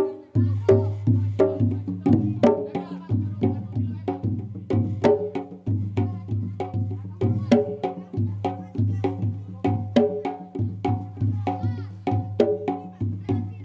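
Traditional percussion music: brisk, even strikes of pitched percussion and drums over a steady low hum.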